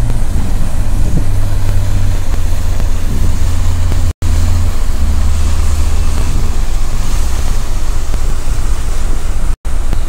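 Wind buffeting the phone's microphone on an open ship deck: a loud, steady low rumble with hiss above it. The audio cuts out briefly twice, about four seconds in and near the end.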